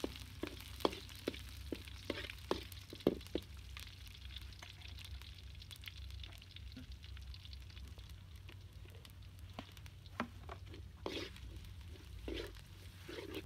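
Chicken and lemongrass sizzling in oil in a wok, with a metal spoon clinking and scraping against the wok as it is stirred: a run of sharp knocks in the first few seconds, quieter in the middle, and more knocks near the end.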